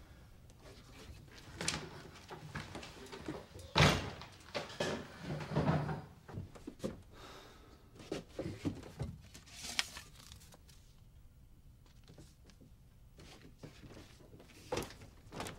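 Things being handled and moved about on a desk in a small room: scattered knocks and clatters, a louder thump about four seconds in, and soft rustling as someone rummages for something.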